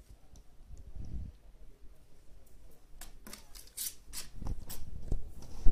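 Kittens scuffling in a play fight: soft thumps, and about halfway through a quick run of sharp scratching clicks.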